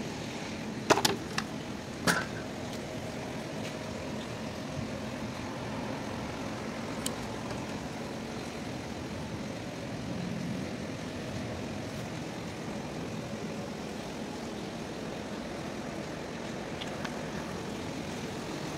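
Steady background noise with a few sharp knocks about a second and two seconds in, as the bare truck radiator core is handled.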